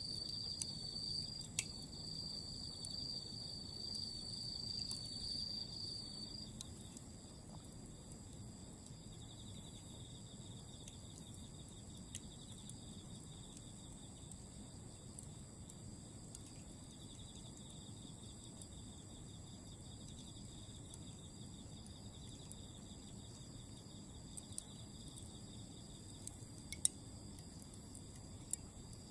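Autumn insects trilling steadily in several high pulsing voices, the loudest one stopping about six seconds in, while glowing Iwate cut charcoal embers give a few sharp isolated crackles, the loudest near the end.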